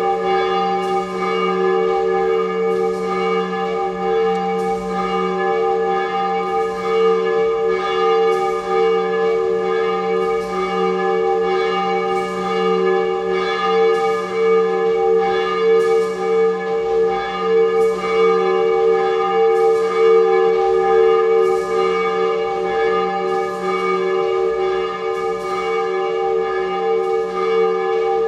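Church bell ringing continuously, struck about once a second, each stroke ringing on into the next.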